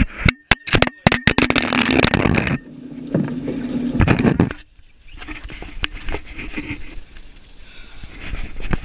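Clattering knocks and handling noise on a boat deck for the first couple of seconds, over a steady low hum that cuts off about four and a half seconds in; softer scuffing and wash follow, with a few more knocks near the end.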